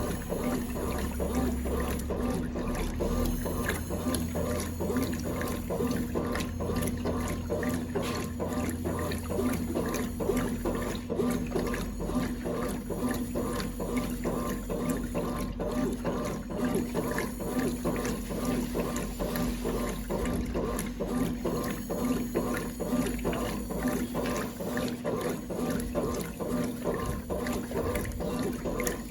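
1996 Brastemp Clean 5 kg washing machine running, with water churning in the tub over a steady motor hum.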